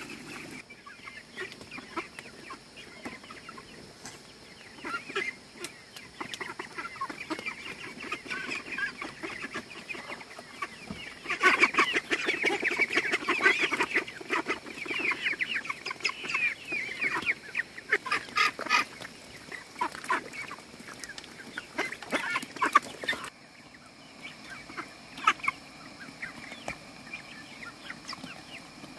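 Domestic ducks and chickens calling in a crowded pen, clucking and quacking over one another. The calls grow into a loud, busy flurry from about eleven seconds in as feed is poured out among them, then thin out again.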